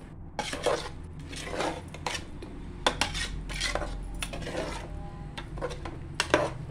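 Metal slotted ladle scraping and clinking against the side of an aluminium pressure cooker while stirring a thick chicken masala, in irregular strokes about once a second, with the sharpest clink near the end. A steady low hum runs underneath.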